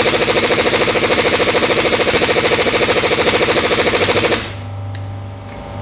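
Impact wrench hammering rapidly on the hard driveshaft bolt at the wheel hub, which does not come loose; the hammering stops abruptly a little over four seconds in, leaving a steady low hum.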